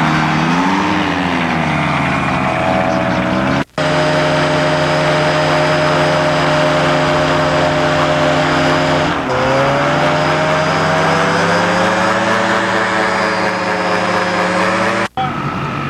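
Ultralight aircraft engines running with a buzzing propeller. First a gyrocopter's engine, its pitch dipping and rising again. After an abrupt cut, a high-wing ultralight's engine holds a steady pitch, then drops suddenly about halfway through and slowly climbs again, with a second abrupt cut near the end.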